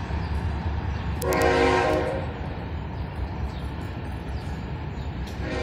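A freight locomotive's air horn sounds one blast of about a second, several tones at once. Under it runs the low, steady rumble of the freight cars rolling past.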